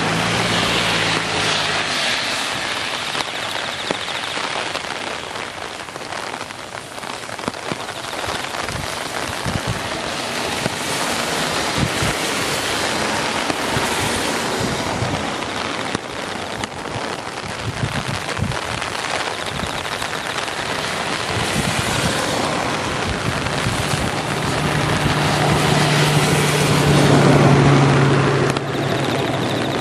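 Heavy downpour of rain, a steady hiss with scattered drops knocking close by. A low engine hum comes in near the end, growing louder for a few seconds.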